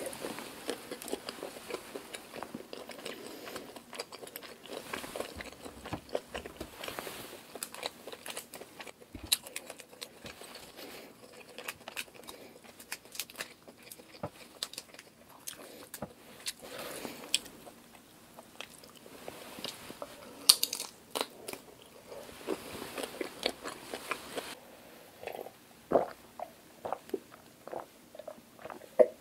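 Close-miked eating of cooked black tiger shrimp: crunchy bites and wet chewing with many small irregular clicks, and shells being pulled off by hand. Near the end come a few gulps as she drinks.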